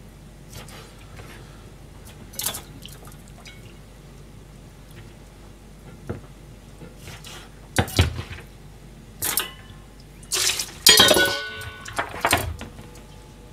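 Kitchen knife tapping lightly on a plastic cutting board, then loud knocks and a clattering, ringing clash of metal kitchenware in the second half as the cutting board and knife are handled against stainless steel bowls and the counter.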